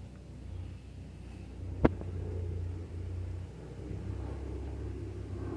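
Steady low rumble, with one sharp click about two seconds in.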